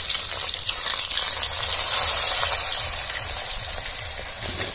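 Pieces of fish sizzling in hot mustard oil in a kadhai: a steady frying hiss that swells about two seconds in and eases a little toward the end.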